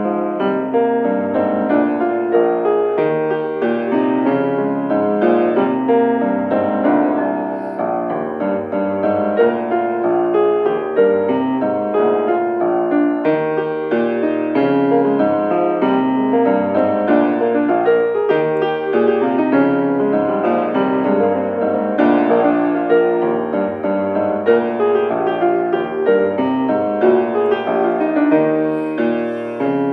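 Grand piano played solo: a flowing piece of many quick notes that goes on without a break.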